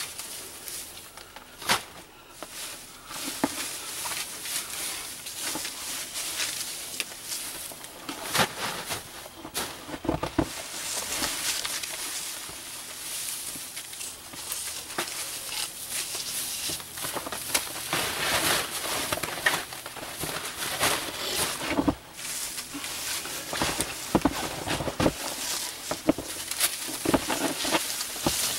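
Evergreen boughs rustling and swishing as they are laid by hand onto snow for a bough bed, with many short crackles and crunches of needles, twigs and snow throughout.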